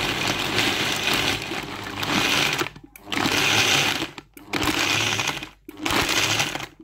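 Electric countertop blender crushing ice cubes with mango chunks, run in pulses: one long run, then three shorter runs with brief stops between, cutting off at the end.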